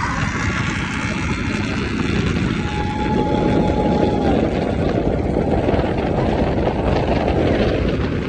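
Airboat's engine and aircraft-style propeller running loud at speed, with rushing wind noise; the noise swells from about three seconds in until near the end.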